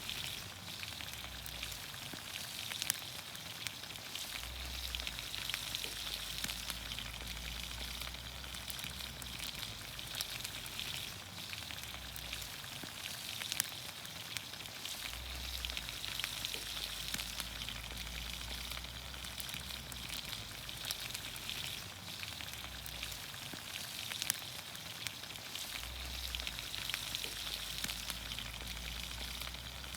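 Vegetables in olive oil sizzling in a pan over a campfire: a steady hiss with scattered small pops and crackles.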